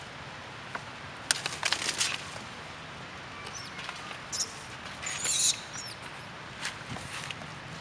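Thin plastic water bottle crackling and clicking in several short spells, the densest near the start and just past the middle, as young monkeys paw and mouth it.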